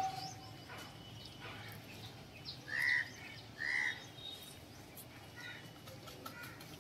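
A bird calls twice, two short calls about a second apart midway through, over faint scattered chirping of other birds.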